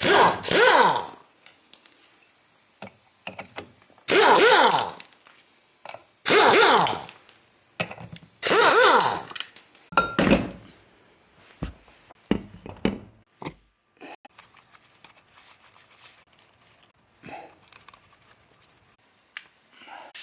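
Cordless impact wrench run in four short bursts, its motor pitch sweeping up and down as it spins lug nuts, followed by scattered knocks and clinks of metal parts being handled.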